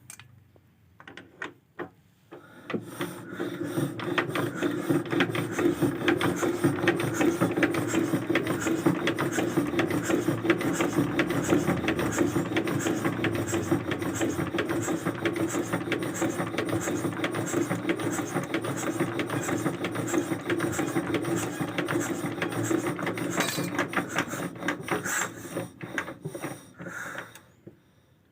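A few knocks, then a small machine runs steadily with a fast, even ticking from about three seconds in, and stops shortly before the end.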